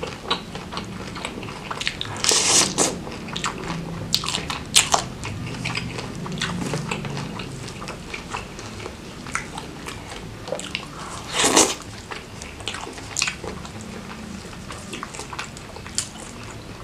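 Close-miked chewing of jumbo shrimp coated in Padang sauce: wet mouth clicks and smacks all through, with two louder bites about two seconds in and again past the middle.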